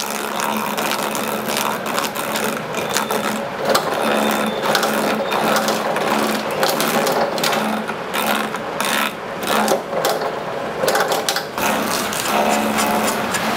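Small motorised machine running with a hum that comes and goes, over many irregular clicks and knocks.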